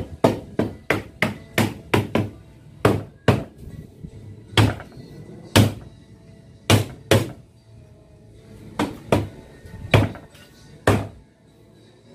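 Hammer striking a wooden block held against the top rail of an aluminium sliding-window frame, knocking the frame down onto the glass pane. About eighteen sharp knocks, a quick run in the first two seconds, then slower single and paired blows that stop about a second before the end.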